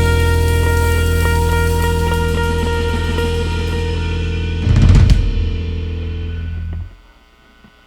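Band holding a final chord over ringing Soultone cymbals and drums, with a last drum-and-cymbal hit about five seconds in; the band then cuts off suddenly near the end, ending the song.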